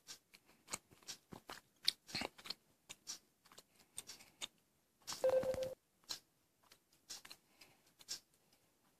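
Faint, irregular clicks and taps of fingers handling a smartphone and touching its screen. About five seconds in comes a brief louder burst of noise with a short, steady low tone.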